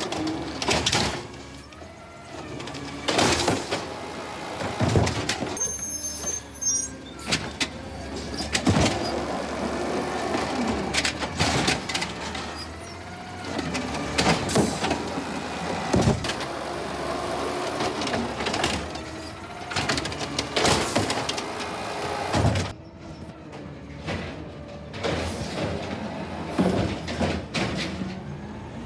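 2016 Peterbilt 320 side-loading garbage truck working its automated arm: the engine revs and the hydraulics whine up and down while the green-waste cart is lifted and dumped, with a series of sharp bangs from the cart and lid. Near the end the truck pulls away.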